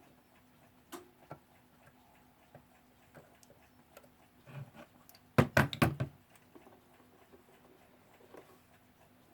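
Small metal clicks and taps from handling the Weltime alarm clock movement and oiler, irregular rather than a steady tick, with a quick run of sharp clicks a little past halfway.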